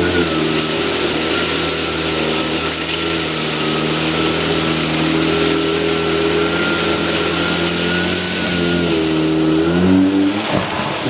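Electrolux UltraFlex bagless canister vacuum cleaner running steadily under load, a motor whine over a strong rush of air as it sucks up dust and rice. Its pitch shifts a few times as the suction load changes, with a short dip a little before the end.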